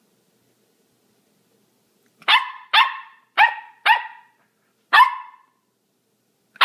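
Corgi puppy barking: after about two seconds of quiet, five high yaps in quick succession, then one more near the end.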